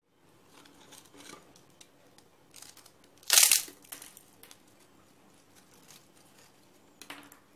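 Thin fried homemade potato chips crackling and rustling as fingers rummage through them and lift a handful, with one loud crunch a little under halfway through and a shorter crackle near the end.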